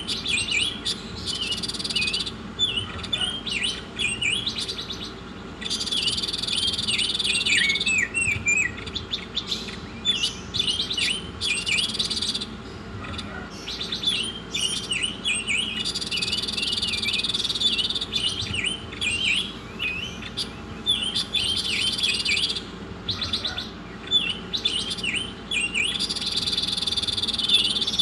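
A songbird singing in long repeated phrases of quick, high, downward-slurred chirps, broken up by stretches of a buzzy trill, over a steady low hum.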